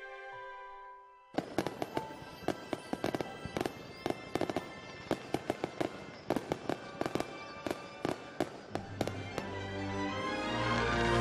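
Fireworks going off: dense, irregular crackling pops, many a second, starting abruptly about a second in. Background music plays at the very start and fades back in underneath near the end.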